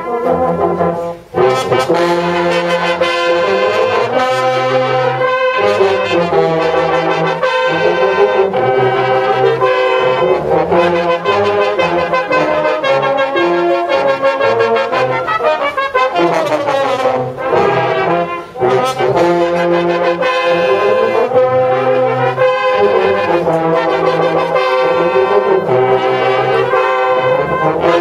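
Brass band playing a piece together: cornets and tenor horns on the tune over tubas and euphoniums, with brief breaks between phrases about a second in and about two-thirds of the way through.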